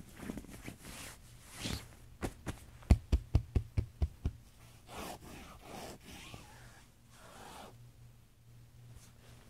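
A quick run of about six knocks close to the microphone, about five a second, much louder than the faint rustling around them.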